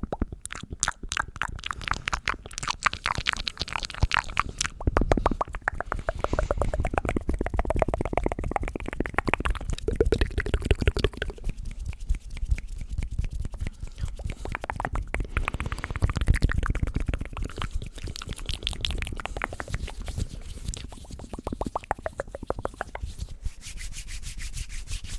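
Close-miked ASMR mouth sounds: a dense, unbroken run of rapid wet clicks and smacks from the lips and tongue.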